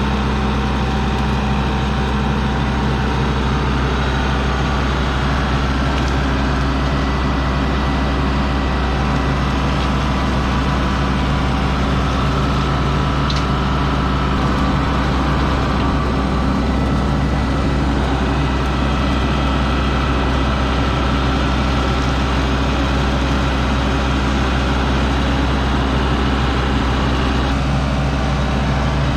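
Tractor engine running steadily in a continuous low drone while cutting paths through tall grass.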